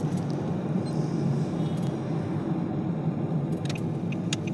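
Steady low rumble of a car's engine and tyres heard from inside the cabin while driving, with a few faint ticks near the end.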